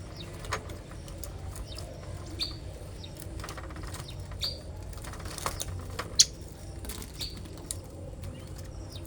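Small caged birds, canaries and sparrows, giving short scattered chirps, with wings fluttering and small clicks and taps, over a low steady hum. A sharp click about six seconds in is the loudest sound.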